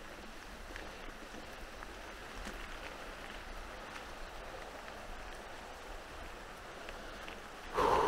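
Mountain bike riding along a trail: steady tyre and rolling noise with small rattles and ticks. Near the end a short, louder sound with a steady tone cuts in.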